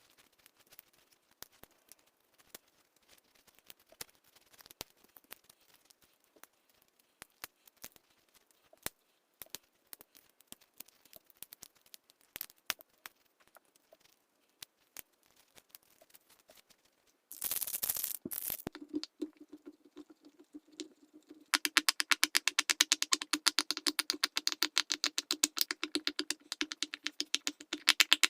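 Silicone pop-it fidget toy bubbles being pressed and popped. There are scattered faint pops at first, a short louder scuffle about two-thirds of the way in, then a fast, steady run of loud pops, several a second.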